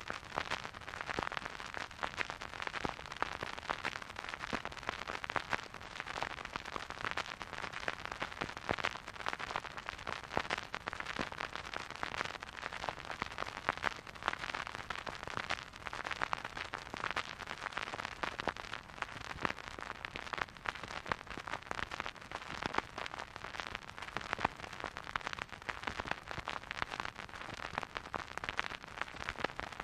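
Vinyl record surface noise from a turntable: a steady, dense crackle of small clicks and pops over a soft hiss.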